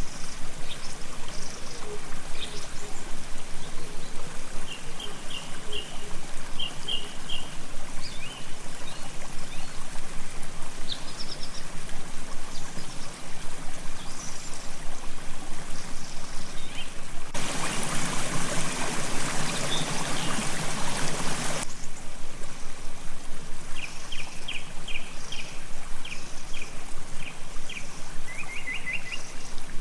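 Water running steadily with small birds chirping in short repeated trills. About two-thirds of the way through, a louder rushing noise lasts about four seconds and then stops.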